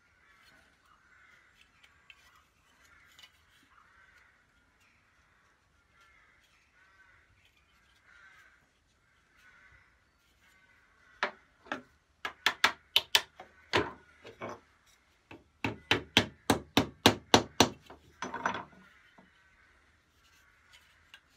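Quick runs of sharp metal-and-wood taps and clicks as the brass saw screws are worked and tapped into the wooden handle and blade of an old backsaw. They don't want to go through. About twenty clicks come in two bursts in the second half, up to about five a second, with a short scrape at the end.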